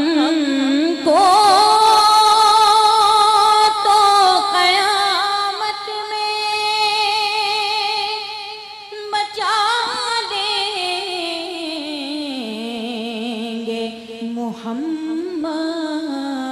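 A woman singing a naat, an Urdu devotional song in praise of the Prophet Muhammad, into a microphone, drawing out long notes with a wavering vibrato. About halfway through she pauses briefly, then starts a new phrase on a high note that slowly falls.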